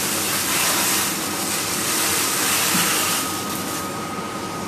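Chicken sizzling in a hot griddle pan as a brandy flambé burns off, a loud steady hiss that eases about three seconds in as the flames die down.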